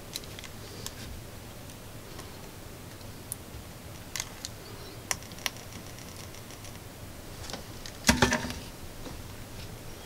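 Scattered light clicks and taps from handling a small amplifier board and soldering iron while speaker wires are soldered on, with a louder clatter about eight seconds in. A low steady hum runs underneath.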